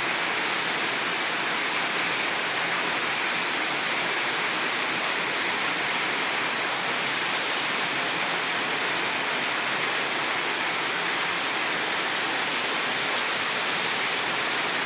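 Waterfall: a steady, even rush of falling water, strongest in the upper hiss.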